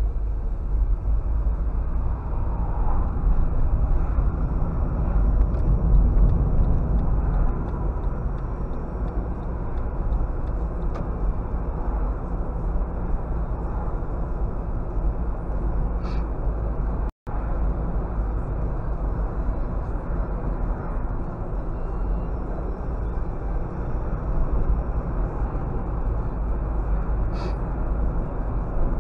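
Car driving noise heard inside the cabin through a dashcam microphone: a steady low rumble of engine and tyres on the road. It cuts out completely for an instant about 17 seconds in.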